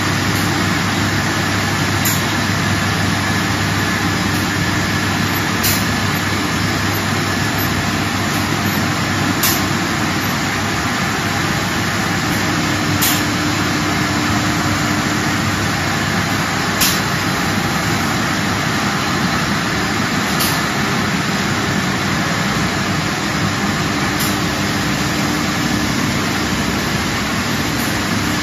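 Wood-veneer UV roller coating and sanding line running: steady machinery noise with a low hum, and a sharp click repeating about every three and a half seconds.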